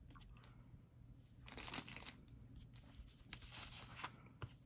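Faint rustling and crinkling of paper craft stickers and tags being handled, in two short spells, about a second and a half and about three and a half seconds in, with a light tap near the end.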